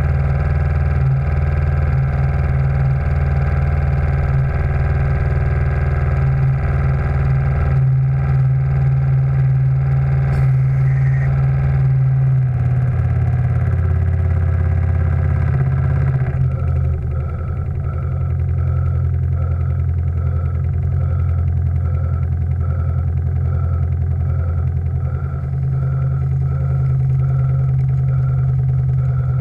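A steam launch's steam engine and gas-fired boiler running with a steady low drone. About halfway through the sound changes and a regular pulse of roughly one and a half beats a second sets in.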